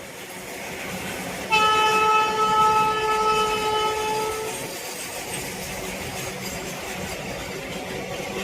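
A passing Indian Railways train's rolling noise builds up, then its locomotive horn blares one long blast of about three seconds, starting sharply about a second and a half in. The train keeps rolling past after the horn stops.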